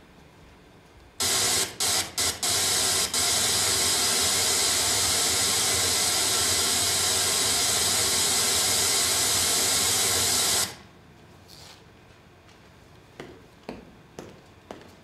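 Loud television static, a white-noise hiss played as a sound effect through the theatre's speakers. It stutters on about a second in with a few brief dropouts, runs steadily for about nine seconds, then cuts off suddenly.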